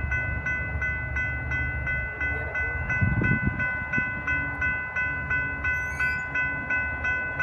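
Railroad crossing warning bell ringing steadily, about three strokes a second, while the crossing gates rise after the train has cleared. Under it a low rumble fades early on, with a louder low thump about three seconds in.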